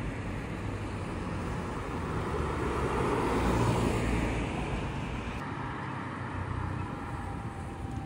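A car driving past close by, its tyre and engine noise swelling to a peak about four seconds in and then fading away.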